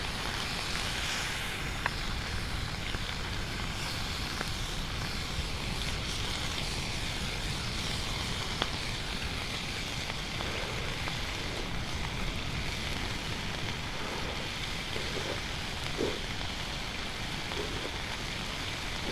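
Steady wash of surf and wind on a beach, with a few faint pops from a campfire.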